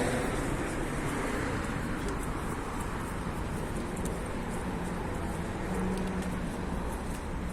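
Steady road traffic noise from cars going by.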